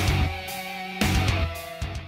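Outro rock music with guitar and heavy hits, loud at the start and again about a second in, getting quieter near the end.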